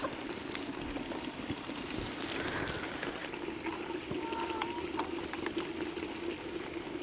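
Light rain falling: a steady hiss with scattered small ticks, over a low steady hum.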